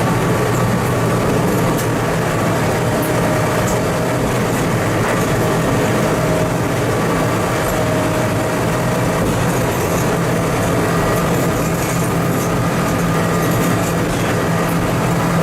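Diesel engine of a TMC200 snow-removal motor car running steadily as the car travels along the track, heard from inside its cab.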